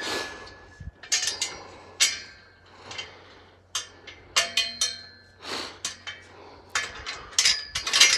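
Sharp metallic clinks and knocks, a dozen or so irregular strikes, several with a brief ring, from a steel pipe-panel livestock gate and its latch being handled.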